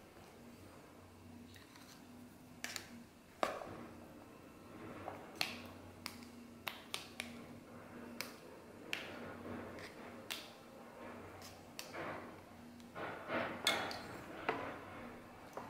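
Metal spoon scooping diced sweet potato and red bean mixture into a steel ladle mould for fritters, with scattered light clinks and taps of steel on steel, busiest near the end, over a faint steady hum.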